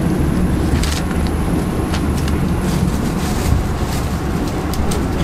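Steady low rumble of a diesel train's engine running, with a few faint light clicks over it.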